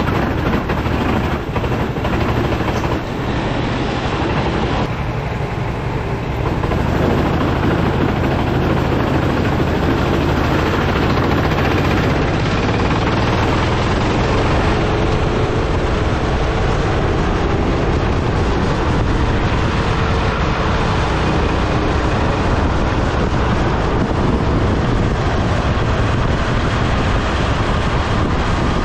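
Racing kart's engine running at race pace, heard from the onboard camera along with road and air noise. The sound drops in level for a few seconds near the start through a slow corner, then runs louder and steady, the engine note climbing as the kart speeds down a straight near the end.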